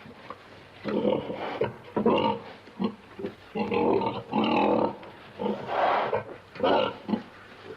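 A pig grunting in a pen: a string of about ten rough grunts with short pauses between them, some clipped and some drawn out to over half a second.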